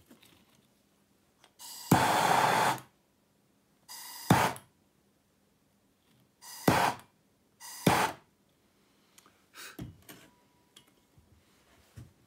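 Hand-held MAP gas torch fired in short bursts to heat flux and solder on a twisted wire joint: four bursts of flame noise lasting about half a second to a second each, each one starting softer and then jumping louder, then a few shorter, fainter puffs near the end.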